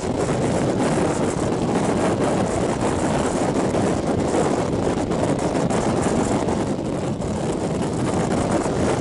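Passenger train running at speed, heard from an open carriage window: a steady rumble of wheels on rail mixed with wind buffeting the microphone.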